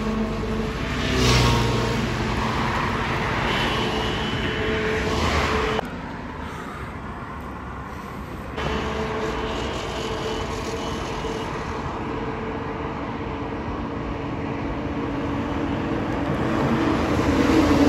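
Highway traffic: trucks, cars and motorcycles passing with a steady engine hum, quieter for a couple of seconds about six seconds in.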